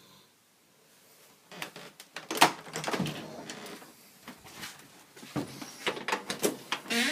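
Irregular knocks, clicks and scraping clatter in two bursts, the sharpest knock about two and a half seconds in.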